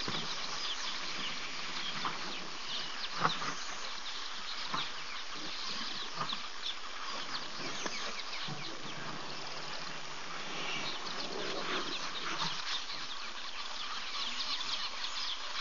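Dense outdoor chorus of birds and insects: many short bird calls over a steady insect hum, with a sharp knock about three seconds in.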